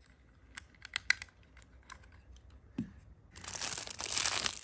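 A few light clicks from handling a small plastic kitchen timer, then near the end a loud crinkling of the clear plastic wrap around a timer, lasting over a second.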